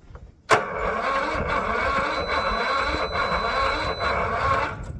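Lawn tractor's electric starter cranking the cold engine without it firing: a click about half a second in, then steady cranking that stops shortly before the end. The intake is being choked by hand, and the owner suspects weak cranking power and no fuel getting through.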